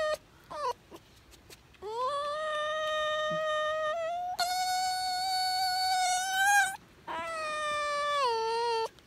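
Red fox whining: a short falling cry about half a second in, then three long high cries, each sliding up at the start and then held, the last dropping in pitch near its end.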